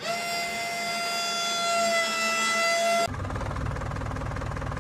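Small electric motor of a toy tractor whining at a steady high pitch, sagging slightly. About three seconds in it cuts to a lower, even buzzing drone as the model tractor drives.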